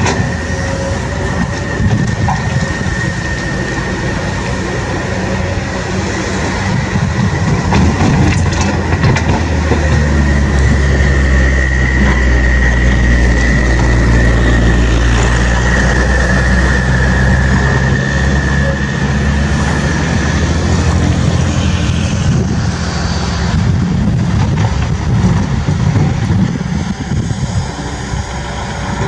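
A heavy vehicle's engine running steadily, its low rumble building and growing fuller through the middle, with a steady high whine over it for most of the stretch.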